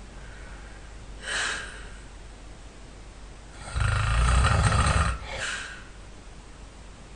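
A person snoring loud and hard in sleep: a soft breath about a second in, then one loud, rough, rattling snore lasting just over a second around the middle, followed by a short softer breath.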